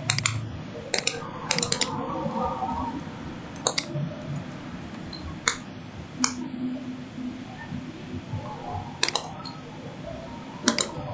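Computer mouse clicks, about ten of them spaced irregularly, some in quick pairs, over a low room background.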